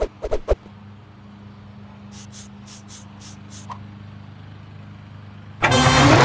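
A quick run of hand claps, then a steady low engine hum of a tractor drawing near. Loud music starts suddenly near the end.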